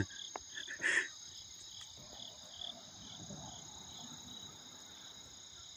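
Night chorus of crickets and other insects trilling steadily, with one short noise about a second in.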